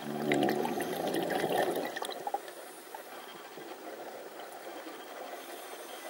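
A scuba diver breathing out underwater: the exhaled bubbles rush and gurgle from the regulator, with a low buzz, for about two seconds. After that there is only a faint steady hiss.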